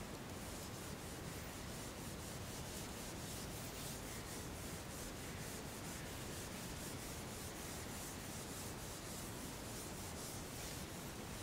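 Felt whiteboard eraser wiping marker writing off a whiteboard: a faint scrubbing in rapid, repeated back-and-forth strokes.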